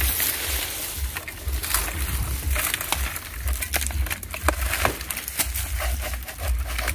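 Coconut palm fronds and a fruit bunch rustling and crackling as they are pushed aside and cut into, with many sharp snaps and clicks. A pulsing low rumble of wind on the microphone underneath.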